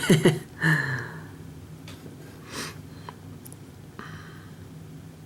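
Lock picking: a few faint, thin metallic ticks of a hook pick working the pin stack of an American 5200 padlock under tension. There is a short breath through the nose about a second in and a fainter one near the middle.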